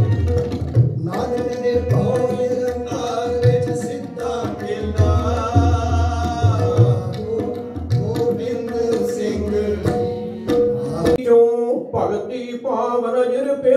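Tabla and harmonium playing Sikh kirtan music: a held harmonium note with melody above it, over the tabla's deep bass strokes and finger strokes. The music breaks off about eleven seconds in and different music follows.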